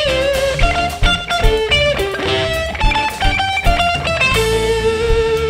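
Live band music: an electric guitar plays a lead melody of short notes over bass guitar, settling about four seconds in on one long held note.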